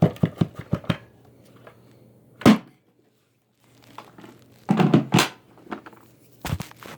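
Handling noises: a quick run of light taps, a loud thump, a crunching, crinkling stretch about five seconds in, and another thump near the end.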